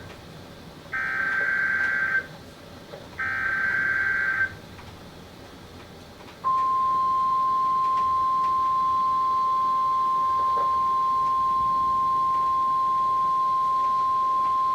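NOAA Weather Radio alert signalling: the end of one harsh warbling digital SAME data burst, then two more bursts of about a second each. A few seconds later the single steady warning alarm tone comes on and holds, announcing a new warning.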